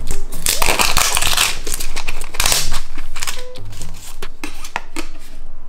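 Packaging crinkling and tearing as it is handled and opened, in loud crackly bursts, over soft background music.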